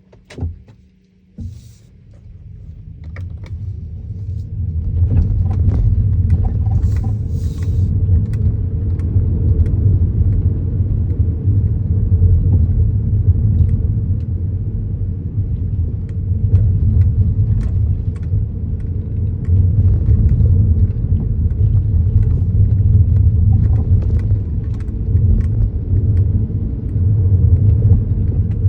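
Kia Niro driving, heard from inside the cabin: a low road rumble that builds over the first few seconds and then holds steady, with scattered short knocks and clunks through it, the clunking noise over speed bumps that the owner is recording.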